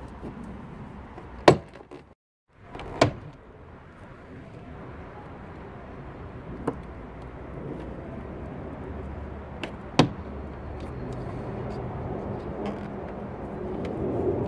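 Four sharp plastic snaps as the BMW E90 door panel's retaining clips pop free of the door under a pry tool. The loudest come about a second and a half in and about ten seconds in, over a steady background hum.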